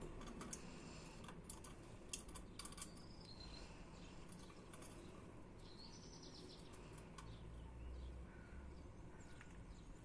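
Faint, quiet scene: a handful of sharp clicks in the first three seconds, then a couple of short faint budgerigar chirps around the middle, over a low steady hum.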